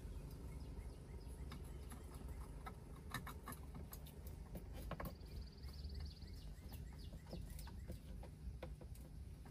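Light, scattered clicks and taps of a screwdriver snugging screws into the plastic shifter cover of an Eaton 9-speed, over a low steady hum, with a brief high trill about halfway through.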